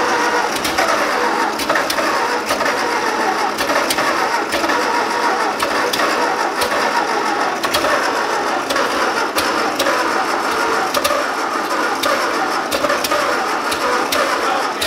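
Starter motor cranking the rebuilt flathead four-cylinder engine of a 1941 Ford 9N tractor: a steady mechanical whirring with a fast run of clicks, held for about fifteen seconds before it stops abruptly.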